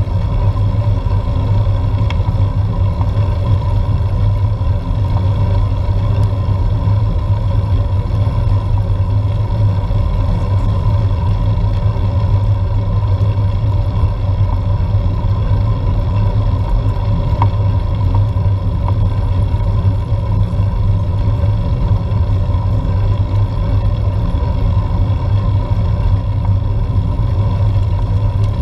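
Steady low rumble of wind and tyre noise picked up by a bike-mounted action camera as a road bike climbs on tarmac, with a faint steady whine above it.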